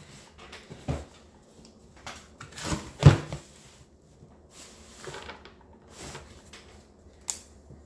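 A stripped-down Stihl MS-250 chainsaw being handled and shifted in a cardboard box: scattered knocks and cardboard rustling, the loudest knock about three seconds in, and a short sharp click near the end.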